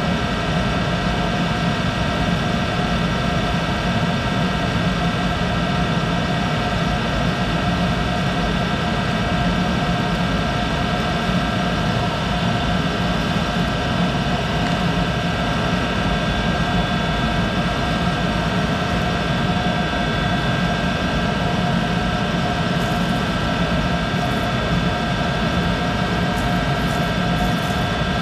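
Monarch 10EE lathe running steadily, a hum with several constant whining tones, while a high-speed steel parting blade is power-fed into the spinning workpiece at one thousandth of an inch per revolution. The lathe runs noisily, which the owner thinks is a bad bearing somewhere inside it.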